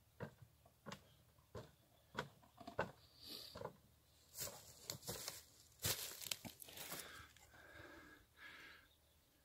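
Rubber boots knocking on the planks of a wooden jetty at a walking pace, about one step every half second, followed by a spell of rustling and knocking from the recording device being handled close to the microphone.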